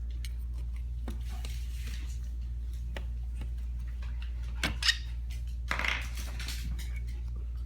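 Metal parts and tools clinking and scraping while a steering column is taken apart by hand. There are scattered light ticks, two sharp clinks a little after halfway, and a short scraping rattle about a second later.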